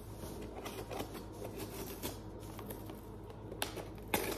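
Scissors and hands working at the packing tape of a cardboard box: scattered light clicks and rustles, with a brief louder rasp near the end. A running dishwasher hums steadily underneath.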